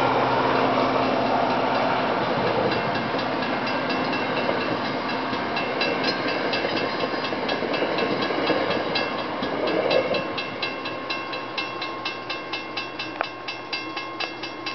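MBTA commuter train's coaches rolling past a grade crossing, the rumble slowly fading as the train moves off. A crossing signal bell dings steadily about three times a second and stands out more as the train noise drops.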